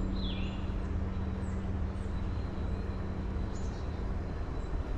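Sawmill engine idling with a steady hum over a low rumble, and a few short falling bird chirps.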